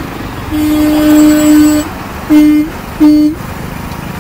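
A vehicle horn honking close by: one long blast of about a second and a half, then two short toots, all on one steady note, over continuous traffic and engine noise.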